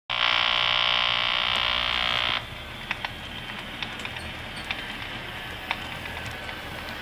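Model Great Northern steam locomotive's sound system blowing one long whistle blast that cuts off sharply about two seconds in. Then the train rolls along the track with a low steady rumble and scattered clicks of the wheels.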